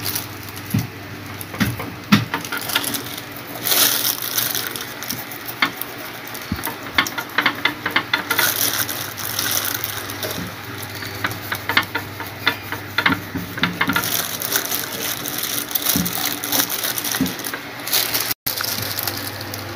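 Kitchen knife filleting a whole red tilapia on a wooden cutting board: repeated rasping strokes of the blade through skin and along the bones, with many scattered clicks.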